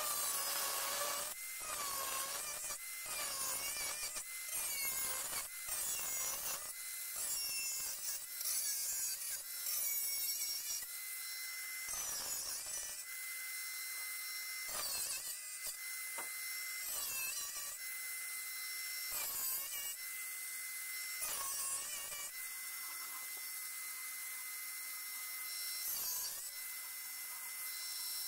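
Angle grinder running with a steady high whine, its cutting disc biting into the metal of an old frying pan in many short cuts. The cuts come close together for the first ten seconds or so, then more sparsely.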